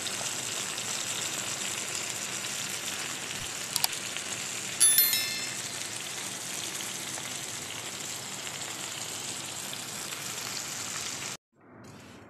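Chicken breasts sizzling in oil in a frying pan, a steady hiss. About five seconds in, a short, bright, ringing notification chime sounds, with a click just before it. Near the end the sizzling cuts off abruptly.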